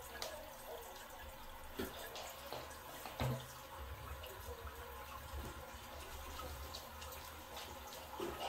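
Flush water swirling and trickling in a clogged toilet bowl that will not drain, with a low steady hum underneath and a short knock about three seconds in.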